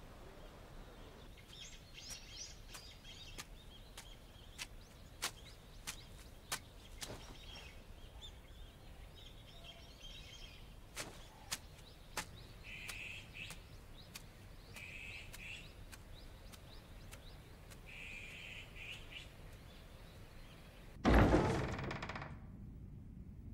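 Quiet outdoor ambience with short bird chirps now and then and scattered faint clicks, then near the end a sudden heavy thud that dies away over about a second.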